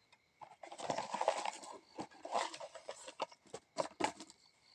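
Rustling and crinkling of a small packaging packet being opened by hand and its contents handled, with scattered sharp crackles and clicks in the second half.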